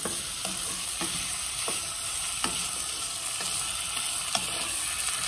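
Peeled fava beans with garlic and turmeric sautéing in olive oil, sizzling steadily, while a wooden spatula stirs them with short scrapes and taps against the pan about once a second.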